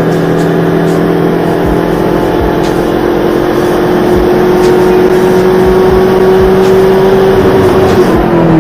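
Mazdaspeed 3's turbocharged 2.3-litre four-cylinder, breathing through a 3.5-inch HTP intake, pulling in second gear at part throttle without boost for a MAF calibration run. The engine note climbs slowly and steadily with the revs, then falls away quickly near the end as the throttle is lifted.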